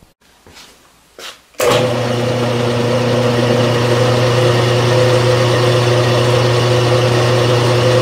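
A milling machine spinning a single-point hole cutter, a ground-down broken center drill in a boring head, as it cuts into thin sheet metal; the sound starts abruptly about a second and a half in as a loud steady machine hum with a dense, noisy chattering cut over it. The chatter is a lot of noise that the maker puts down to the cutter's post being slightly too wide, so it cuts a wider groove than needed.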